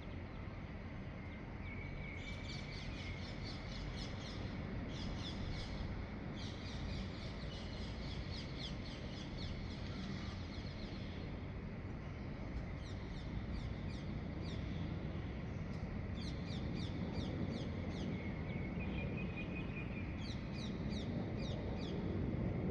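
Birds chirping at dawn in several bouts of rapid, repeated high calls over a steady low rumble of background noise.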